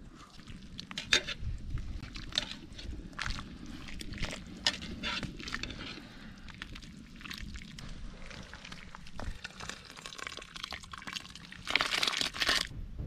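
Irregular clicks, knocks and crunching handling sounds, with a louder, noisier burst lasting about a second near the end.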